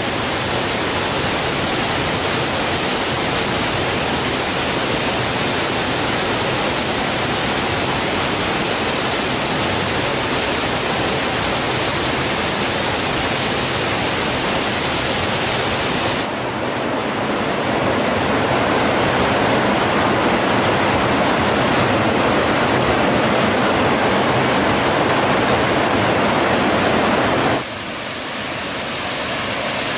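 Steady rush of water from a waterfall, a dense hiss with no breaks. Its tone shifts abruptly about sixteen seconds in and again a couple of seconds before the end.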